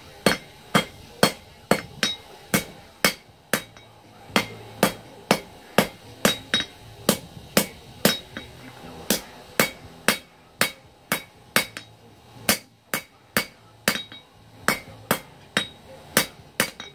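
Hand hammer striking hot 1070 steel on an anvil in a steady run of blows, about two to three a second with a few brief pauses, each blow with a short metallic ring. The knife's point is being drawn down while the steel is at forging heat.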